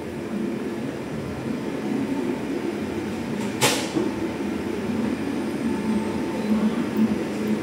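A steady low rumble of background noise, with one sharp clatter about three and a half seconds in.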